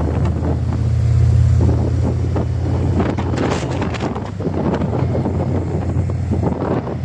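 Harley-Davidson V-twin engine and exhaust with a steady low rumble while riding, a little louder about a second in, with wind buffeting the microphone in gusts from about three seconds on.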